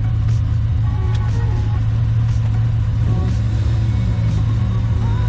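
Car engine running steadily, a low, even drone with no break or rise.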